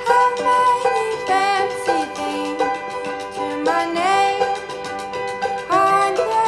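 Background music with a sung or lead melody over a steady percussion beat.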